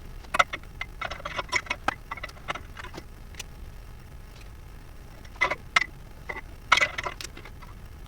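Irregular sharp clicks and short metallic clinks of hand tools on metal, in two bunches, while a replacement oxygen sensor is worked into place under the car.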